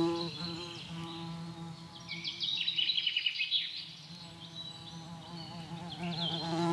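Flying insect's wing buzz, a low steady hum that fades down at the start and swells back near the end. In between, about two seconds in, comes a rapid high chirping trill lasting a second or so.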